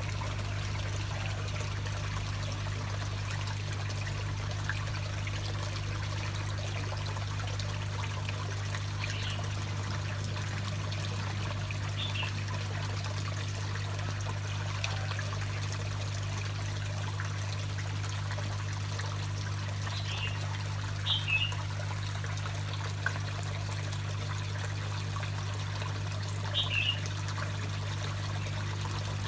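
Water trickling steadily into a small koi pond, over a constant low hum, with a few short high chirps now and then.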